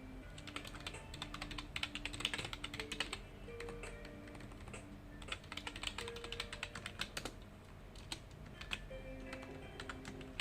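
Typing on a computer keyboard, rapid key clicks in bursts with short pauses between them, over soft background music with slow held notes.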